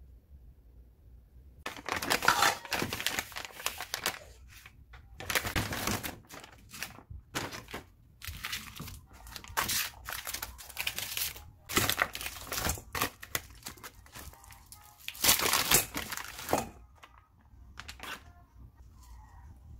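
Plastic packaging crinkling and rustling in a long run of irregular bursts as a vacuum-sealed pack of frozen baby octopus is handled and opened. The sound starts about two seconds in and dies away near the end.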